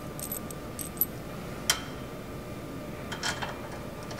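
A few light metallic clicks and clinks from steel hex bolts and hardware being handled and fitted into a steel workbench leg, spread out with one sharper click near the middle.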